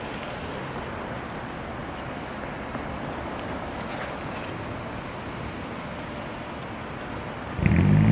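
Steady city street traffic noise. Near the end, a nearby vehicle engine suddenly gets much louder.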